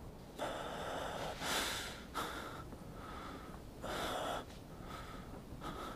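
A man's heavy, laboured breathing: a series of soft, ragged gasps for breath from someone in pain and short of breath.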